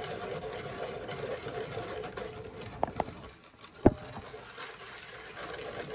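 Steady hum of a small electric motor while ham glaze is mixed in a bowl, with two quick clicks near the middle and a sharper knock a little before four seconds in.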